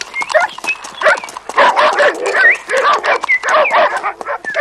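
Several caged dogs barking and yelping over one another, with short high rising yelps among the barks.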